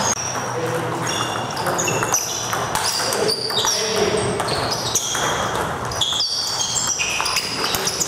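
Table tennis balls ticking off bats and the table in rallies, several quick clicks a second, with more from neighbouring tables, over a murmur of voices.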